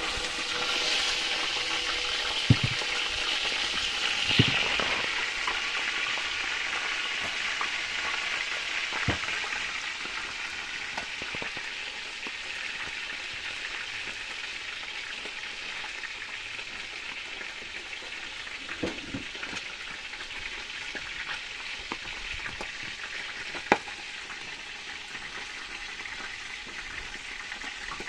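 Whole mojarras (tilapia) frying in hot oil in a steel pot: a steady sizzle, loudest in the first few seconds and then easing off gradually, with a few sharp clicks now and then.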